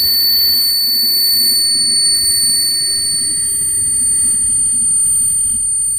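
A 600 oz-in stepper motor on a Gecko G540 driver spinning at about 5,300 RPM on a 179 kHz step signal, giving a steady high-pitched whine.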